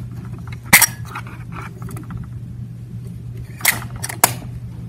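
Nikon FM10 film camera's back door latch clicking: a sharp click about a second in as the door pops open when the rewind crank is pulled up, then two smaller clicks near the end as the door is pressed shut.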